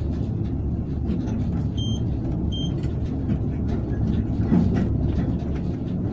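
Cab noise of a ČD class 163 electric locomotive on the move: a steady rumble of wheels and running gear, with rattles and clicks from the track. Two short high electronic beeps sound about two seconds in.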